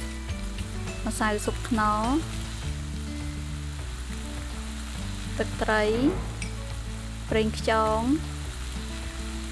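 Squid frying in hot oil in a pan, a steady sizzle. Background music runs under it, with sustained low notes and three loud sweeping, pitch-bending notes.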